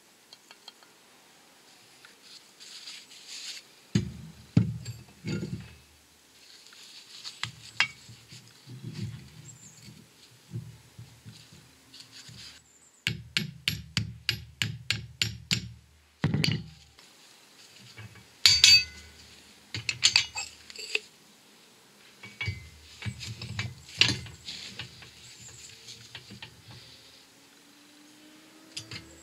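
Heavy steel parts (wheel hub, bushes and press fittings) being handled and set in place on a hydraulic shop press: scattered clinks and knocks of metal on metal, with a quick run of about a dozen clicks around the middle.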